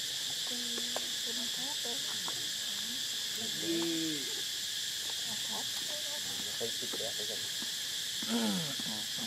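Steady high-pitched insect drone, with scattered short animal calls over it: a hoot-like call that rises and falls about four seconds in, and a call that slides down in pitch near the end.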